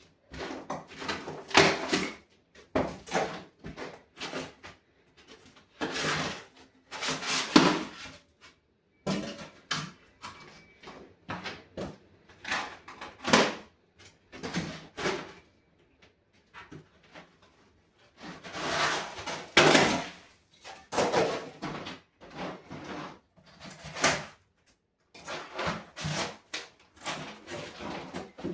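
Old wooden floorboards being lifted and dragged: repeated scraping and creaking of wood in irregular bursts of a second or two, with short pauses between.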